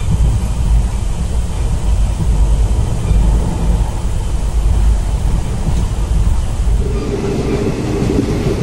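Indian passenger train's sleeper carriage running: a loud, steady low rumble from the moving train. About seven seconds in, a steady higher drone joins it.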